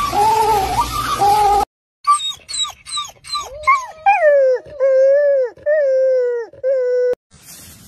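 Penguin calls for the first second and a half. After a short gap comes a wolf: a run of short yips, then about four long howls, each one dropping in pitch at its end.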